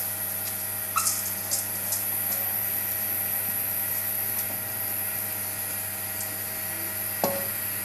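Steel spoon clicking and knocking against a large aluminium pot while rice is stirred into boiling water, with a few light clicks about a second in and one louder knock near the end. A steady hum runs underneath.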